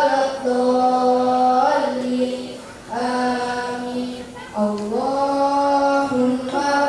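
A young voice, amplified through a microphone, chanting a prayer in long held melodic notes, with two short breath pauses and a step up in pitch after the second.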